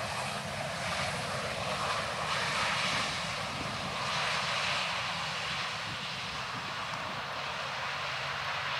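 Jet engine noise from a Boeing 737-800's CFM56-7B turbofans during the landing roll on the runway. It swells to its loudest a few seconds in, then eases slightly.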